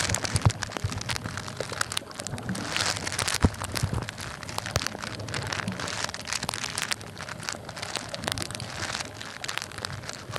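Dense underwater crackling and clicking, like rain on a surface, picked up through a camera sealed in a soft plastic waterproof bag, with a few low thumps.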